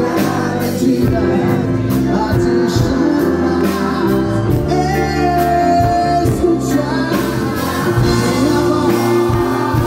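Live band music through a PA: a man sings into a handheld microphone over electric bass and drums, loud and steady.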